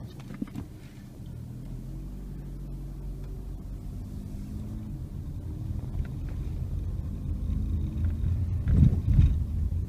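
Car cabin noise while driving: engine and road hum building steadily, with occasional light clicks of a rattle that comes from the loose plastic ring on a small water bottle's cap, which rattles terribly.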